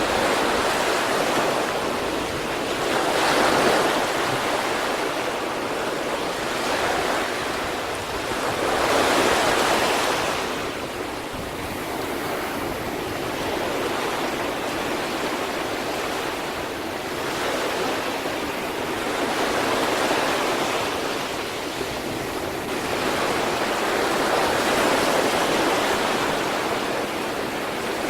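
Sea waves breaking on the shore: a continuous rush of surf that swells and falls back every few seconds as each wave comes in.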